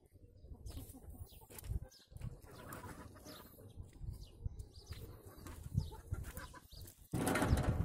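Birds chirping over an uneven low rumble, with a sudden louder noise starting near the end.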